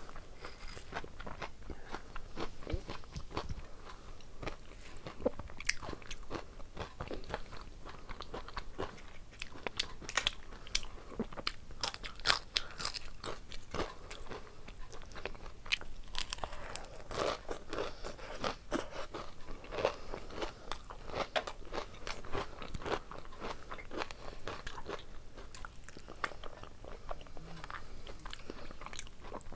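Close-miked eating: crunching and chewing mouthfuls of rice mixed with crispy shredded fried potato (aloo fry). The crisp crunches come thick and irregular, busiest around the middle.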